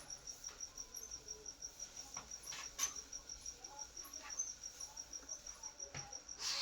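A cricket chirping steadily in the background, a fast, even train of high-pitched pulses, about six a second. A brief scratchy noise comes near the end.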